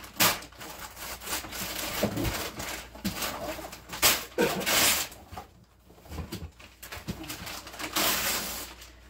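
Wrapping paper being ripped and crumpled off a present in a series of tears and rustles, with sharp rips about a quarter second and four seconds in and longer tearing near the end.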